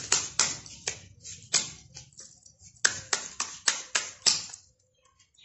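Deck of playing cards being shuffled by hand, the cards snapping together at about three snaps a second in two runs with a short pause between, stopping near the end.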